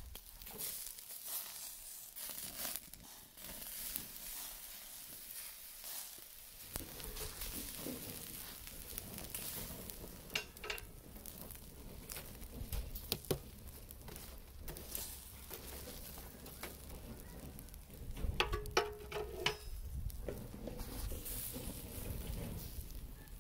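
Shashlik sizzling over a wood fire, with irregular crackles and pops. A low rumble joins about seven seconds in.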